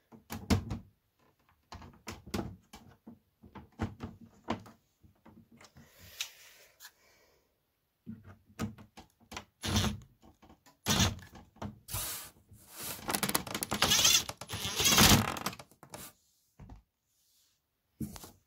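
Handling noises: a run of irregular clicks, knocks and thumps, with a longer stretch of rubbing and scraping about twelve to fifteen seconds in.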